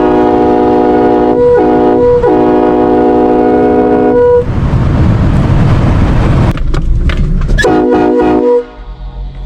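Raised-letter two-piece Nathan K5LLA five-chime train horn blowing a loud chord, broken twice briefly and stopping about four and a half seconds in. A few seconds of vehicle and road rumble follow, then one short blast of the horn near the end.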